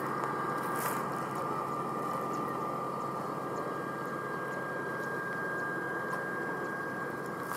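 Fuji Dream Airlines regional jet's turbine engines idling: a steady rushing noise with a high, steady whine.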